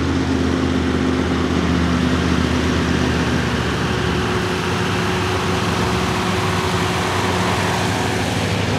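Engine of a lifted 1971 Ford pickup mega truck idling steadily, its note shifting slightly about four seconds in.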